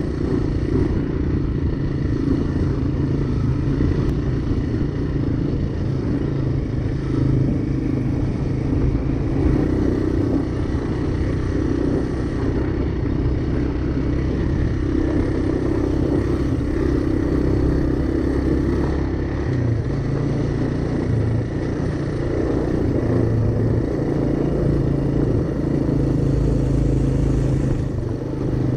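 Honda Fat Cat's single-cylinder four-stroke engine running steadily while being ridden, its note rising and falling slightly with the throttle.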